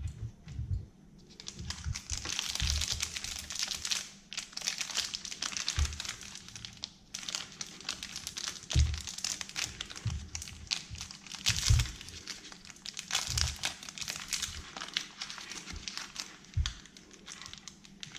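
Plastic candy wrappers crinkling and tearing as they are unwrapped by hand, in spells of crackling with short pauses, with occasional soft knocks of handling.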